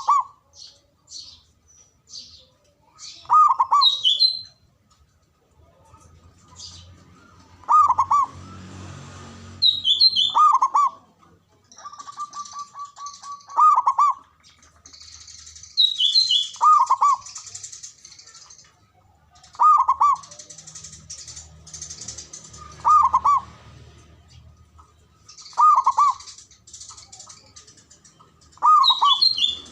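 Zebra dove (perkutut) cooing, a loud phrase repeated about every three seconds, one opening with a quick stuttering run of short notes. Fainter high chirps sound between the phrases.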